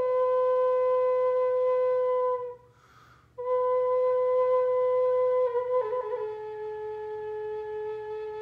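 Wooden Native American-style flute playing a slow, meditative line of long held notes. It breaks off for a breath about two and a half seconds in, takes the same note up again, then flutters briefly near six seconds before stepping down to a lower note that is held almost to the end.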